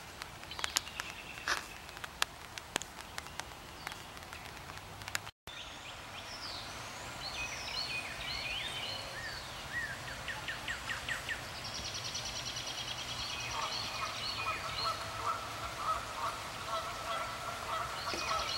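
Rain dripping in a wetland, heard as scattered sharp drip ticks over a faint hiss. After a cut about five seconds in, wild birds chirp with quick whistled glides, a fast high trill starts about twelve seconds in, and from about fourteen seconds waterfowl call over and over, growing louder toward the end.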